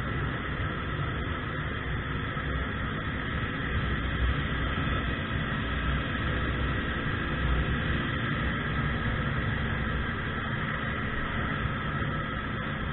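Steady wind noise on the microphone of a moving 50cc Yuki Gusto scooter, with the even drone of its small engine under it.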